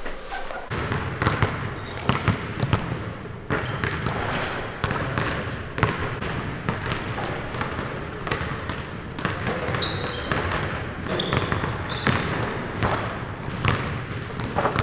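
Several basketballs bouncing on a hardwood gym floor, irregular overlapping thuds from players dribbling and shooting, echoing in the large hall.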